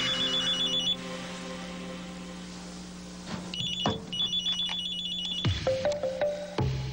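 Telephone ringing with a rapid electronic trill in two rings: one ends about a second in, and the next starts after a pause of roughly two and a half seconds and lasts about two seconds. Background music plays under it, and there are a few knocks near the end of the second ring.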